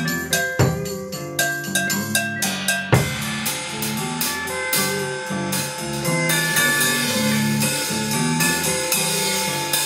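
Tama drum kit playing a bossa nova groove over a looped electric guitar part, with sustained pitched chords under the drum strikes. A couple of hard hits land in the first three seconds, and the cymbal wash grows denser from about six seconds in.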